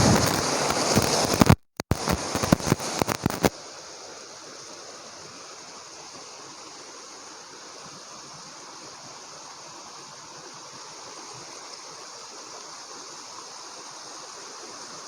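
Waterfall water rushing. For the first three seconds or so it is loud and close, with knocks and a brief dropout, then it settles into a quieter, even, steady rush.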